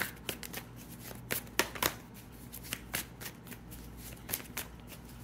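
A tarot deck being shuffled by hand: a run of quick, irregular papery clicks and flaps.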